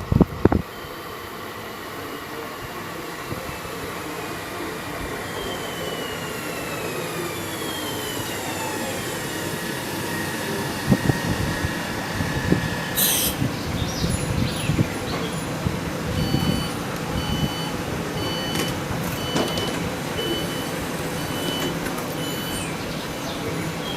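RB 45 regional train at a station: its drive whines in falling glides as it slows, then a sharp hiss of air about halfway through. After that, a beeping signal repeats about once a second for several seconds over the rumble of the stationary train.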